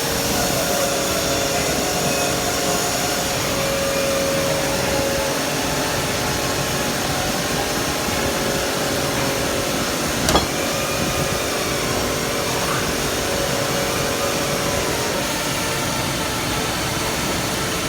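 A machine running steadily with a faint whine that comes and goes, and one sharp click about ten seconds in.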